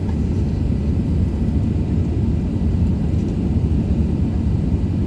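Steady low rumble of an Airbus A380-800's engines and airflow, heard inside the passenger cabin.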